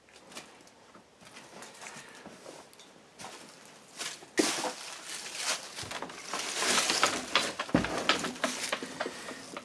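Handheld camera handling noise with scuffing steps and rustling. It gets louder and busier about four seconds in, with a sharp click there and a dull thump near the end.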